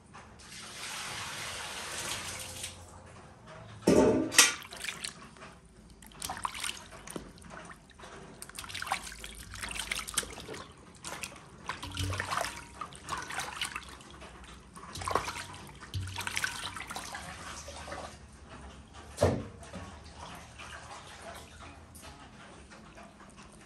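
Water pouring for a couple of seconds, then intermittent splashing and handling noises, with loud knocks about four seconds in and again later on.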